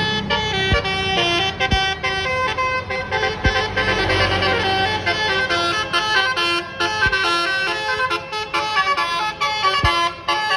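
Basuri telolet musical horn on a bus, several trumpets sounding at once and playing a fast tune of quickly changing notes, with a few sharp clicks under it. The tune cuts off suddenly at the end.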